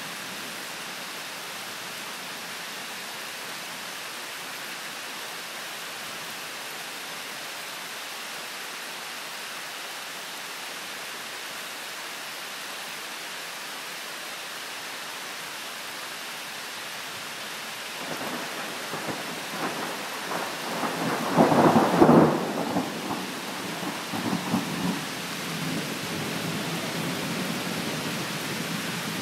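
Steady rain falling. About two-thirds of the way through, a roll of thunder builds, cracks at its loudest peak and rumbles away over several seconds.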